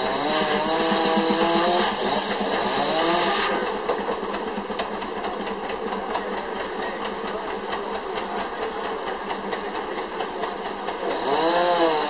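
Case steam traction engine driving a sawmill: a circular saw's whine sags and rises in pitch as it takes load for the first few seconds, then the engine and mill run on with a steady rapid beat, and the saw whine swells and dips again near the end.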